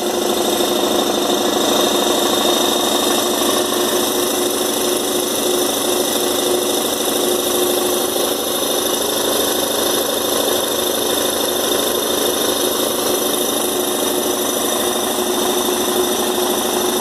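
Black Max electric air compressor running steadily after being switched on: a loud, even motor-and-pump drone with a constant hum, pumping up its tank.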